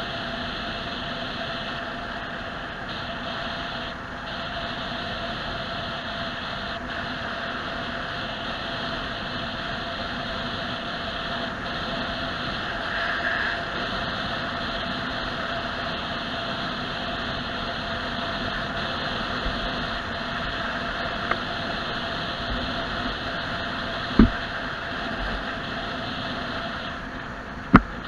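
Steady engine and road noise heard inside a moving vehicle's cab, with a constant hum. Two short, sharp thumps come near the end, about four seconds apart.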